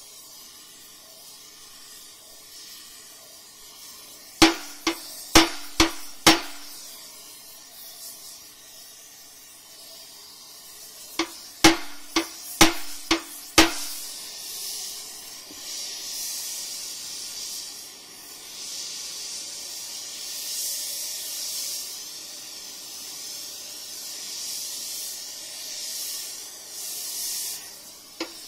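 Gas heating torch hissing on a glowing spot of a steel excavator stick. Two runs of ringing hammer blows on the steel, five a few seconds in and six near the middle. The hiss then grows louder and higher for the second half.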